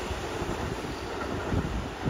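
Kintetsu electric train running away along the track: a steady rumble of wheels on rail with low thuds.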